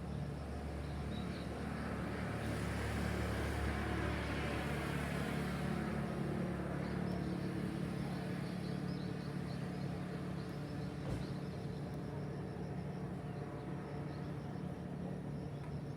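City street ambience: a steady hum of traffic, with a passing vehicle swelling and fading over the first several seconds, and a single short click about eleven seconds in.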